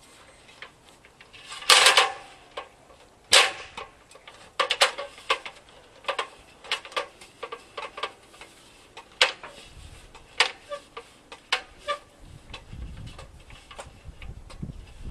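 Irregular metallic clicks and knocks from metal parts being handled, with a louder clatter about two seconds in and a hard knock shortly after. Some of the knocks ring briefly.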